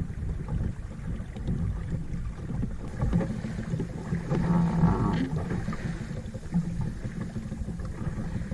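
Water rushing and splashing along the hull of a small Welsford Navigator sailing dinghy moving under sail through choppy water, with wind buffeting the microphone. The splashing gets louder around the middle.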